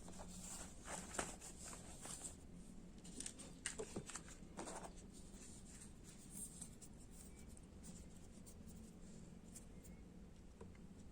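Light handling noises from unboxing: scattered soft clicks and rustles for the first few seconds, then only a faint steady room hum.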